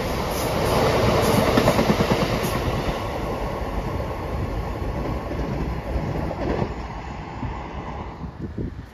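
Freight train of loaded open box wagons rolling past, the wheels clicking over rail joints. The rumble fades near the end as the tail of the train draws away.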